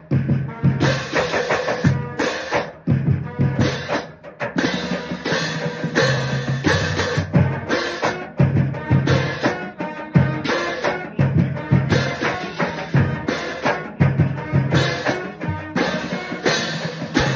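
Marching band percussion playing a steady, driving beat: bass drums, snare drums and a pair of hand-held marching crash cymbals clashing in rhythm.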